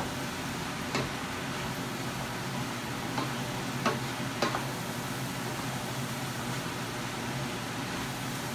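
Pork mince and chopped vegetables sizzling in a frying pan as they are stirred with a wooden spatula. The spatula knocks against the pan a few times, about a second in and around three to four and a half seconds in.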